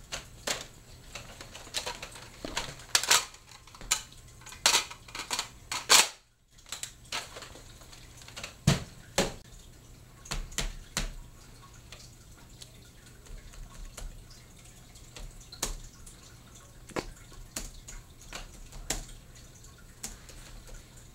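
Hands tapping and typing on a laptop keyboard and a wooden tabletop: irregular clicks and taps, with a few much louder knocks.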